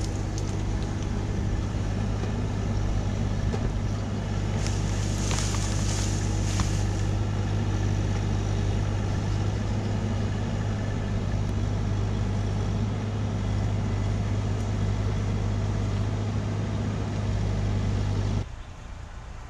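Bobcat E26 compact excavator's engine running steadily, with a couple of brief hissy flares about five to seven seconds in. The engine sound drops off abruptly about a second before the end.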